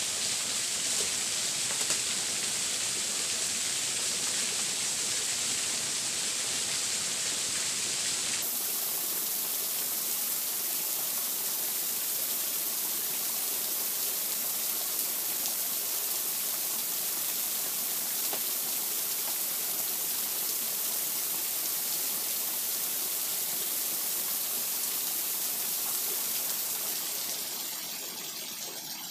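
Small waterfall pouring over rocks into a stream: a steady, loud rush of water. The deepest part of the rush drops away about eight seconds in, and the sound eases a little near the end.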